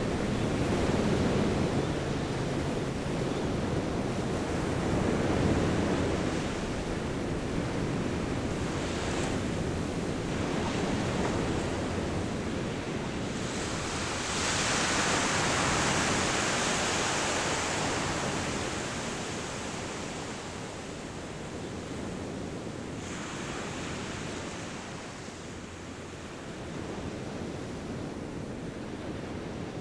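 Sea waves washing onto a sandy beach, a steady surf hiss that swells as a louder wave breaks about halfway through, then eases.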